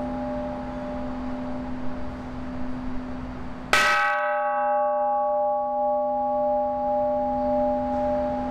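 Bronze Buddhist temple bell struck once with a hand-held wooden mallet a little under four seconds in, the ring of the previous strike still sounding before it. The strike gives a sharp clang and then a long ring of several tones, the higher ones fading within a couple of seconds while the low hum carries on.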